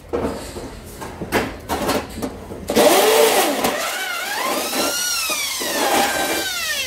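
Electric hand drill working on a stainless-steel stove top, after some light metal knocks and clinks. About a third of the way in the drill's motor starts, and its whine rises and falls in pitch as the trigger is squeezed and eased.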